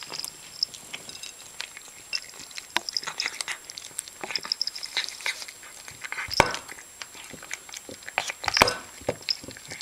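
A pet moving about right up against the camera: scattered clicks and short high clinks, with two louder knocks about six and a half and eight and a half seconds in.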